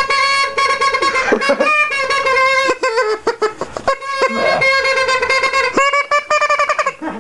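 A small white plastic whistle-like noisemaker blown by mouth, making loud horn-like honks at one steady pitch. It breaks into rapid stuttering toots in places and dips briefly in pitch a few times.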